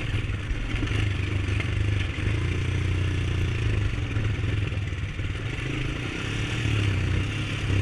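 Honda ATV's single-cylinder four-stroke engine running at a steady pace while riding, the note rising and falling only a little.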